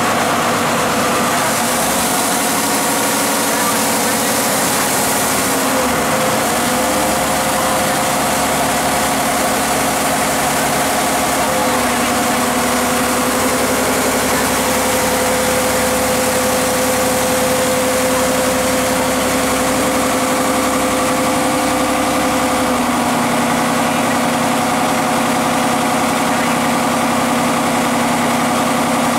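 A river ferry's engine running steadily, its note shifting in steps a few times.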